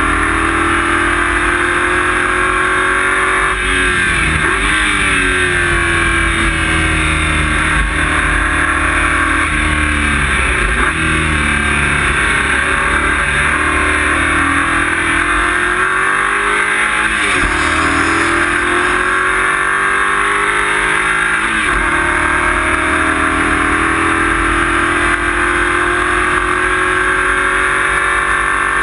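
Race car engine heard from inside the cockpit at speed, its note climbing and falling again and again, with sudden drops in pitch several times as it shifts gear.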